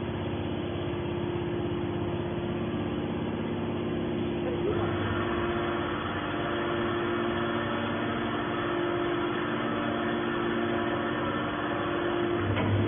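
Hydraulic scrap metal baler running: a steady mechanical hum with a held tone, growing louder and noisier about five seconds in.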